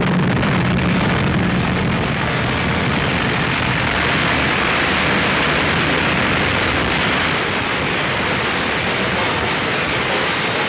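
A film sound effect of a torrent of floodwater crashing in: a loud, steady rush of water.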